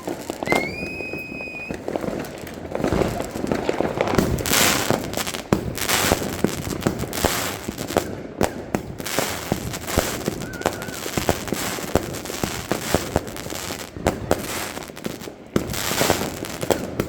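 Fireworks going off: a dense, irregular string of firecracker bangs and crackling, with a short whistle about half a second in.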